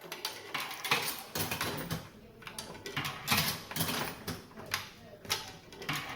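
A run of irregular sharp clicks and rattles from someone operating a vending machine to buy a drink.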